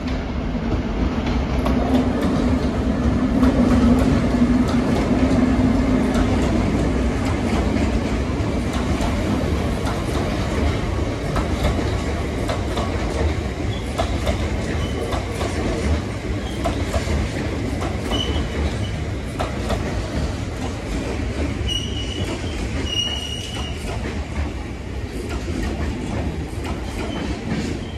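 A long train of Drax biomass hopper wagons rolls steadily past behind a Class 60 diesel, wheels clattering over the rail joints. A low hum fades over the first several seconds, and a few short, high wheel squeals come in the second half.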